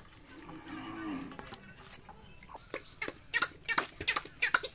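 A goat bleats once near the start, a single falling call. From about halfway a knife scrapes the skin off green hog plums (amra) in quick, sharp rasping strokes, roughly four a second, louder than the bleat.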